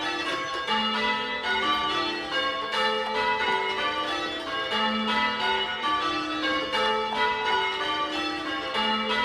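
Church bells rung in changes by a band of ringers: a steady, evenly paced run of overlapping bell strikes, each note ringing on under the next.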